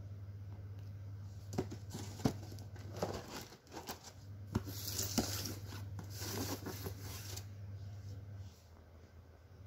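A cardboard box being handled and turned over on a tile floor: several sharp knocks and taps, then a few seconds of rustling, scraping cardboard. A low steady hum runs underneath and drops out twice.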